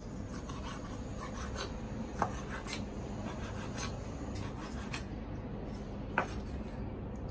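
Kitchen knife slicing a red onion on a wooden cutting board: an irregular run of cuts, the blade rasping through the onion and tapping the board. Two sharper knocks come about two seconds in and near the end.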